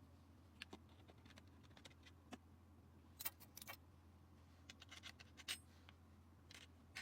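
Scattered faint clicks and light taps of small hard parts being handled, over a low steady hum.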